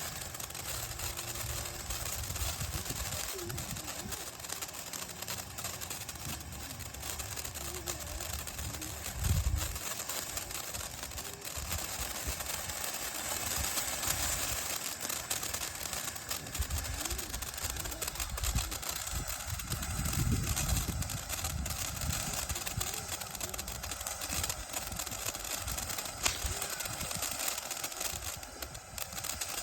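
500-gram consumer firework fountain burning: a steady spraying hiss with dense crackle.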